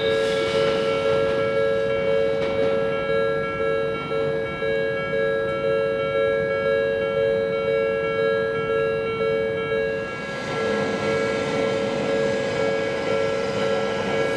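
Japanese level-crossing alarm ringing, its electronic bell repeating about twice a second in a steady pattern. About ten seconds in, the running noise of an approaching electric train rises beneath it.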